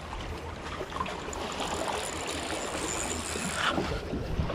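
Sea water washing and lapping against concrete tetrapods and rocks, with a low wind rumble on the microphone. A faint high whine runs through the middle and ends with a short click about three and a half seconds in.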